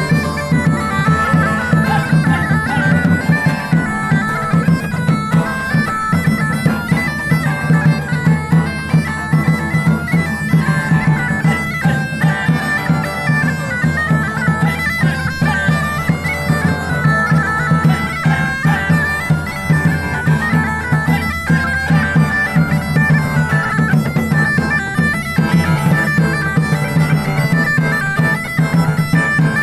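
Bagpipe music: a tune played over a steady low drone.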